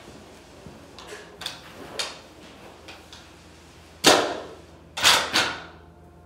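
Footsteps and handling noises on a drop-cloth-covered floor, with three louder scraping swishes about four and five seconds in as a long pole is worked over the covered floor.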